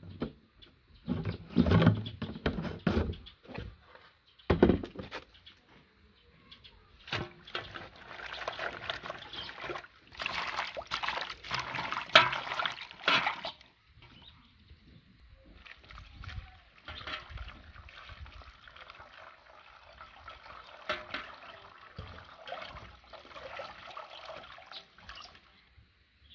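Water sloshing and splashing in a large metal basin as bunches of fresh coriander are swished and rinsed by hand. There are a few sharp knocks in the first few seconds. The splashing is busiest in the middle and softer toward the end.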